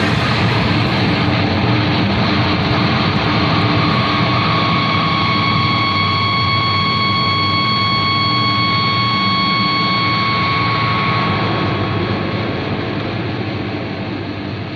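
Soundtrack music: a dense, noisy wall of sound with a few high tones held through the middle, beginning to fade out near the end.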